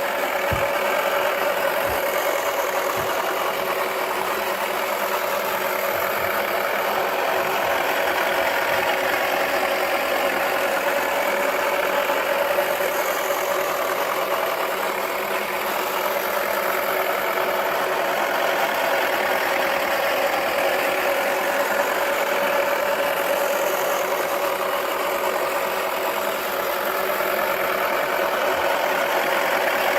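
Toy washing machine's small electric motor running steadily, with a constant mid-pitched whine as the drum turns.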